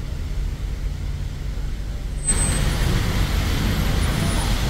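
Road traffic on a wet street: a steady low rumble of vehicles. About two seconds in, a sudden hiss sets in and holds.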